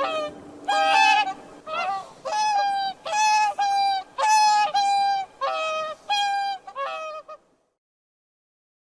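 Swan giving a rapid series of about a dozen short, nasal trumpeting calls, stopping about seven and a half seconds in.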